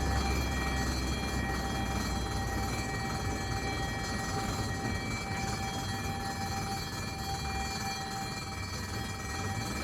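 Ambulance engine running steadily: a constant low rumble with thin, steady high tones above it.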